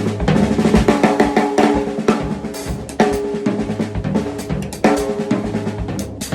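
Drum kit played in a busy syncopated pattern of snare, bass drum and tom hits, with the hi-hat stepped closed on quarter notes underneath.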